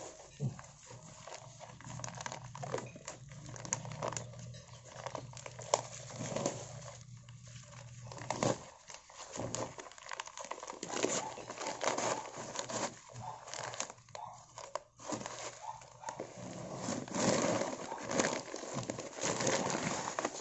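Woven plastic sack crinkling and tearing as hands rip it off a soil-packed root ball, with irregular crackles and rustles that grow louder in the second half.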